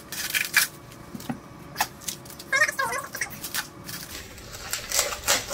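Plastic film on a tray of ground beef crinkling and tearing in short, irregular crackles as it is picked at and peeled open by hand.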